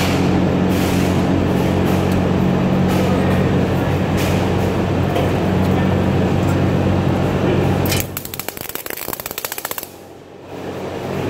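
MIG welding arc crackling steadily on thin sheet steel, over a steady low hum from the welder, with the machine just turned down. About eight seconds in the steady crackle stops and gives way to two seconds of rapid popping, then a brief dip before the noise builds again near the end.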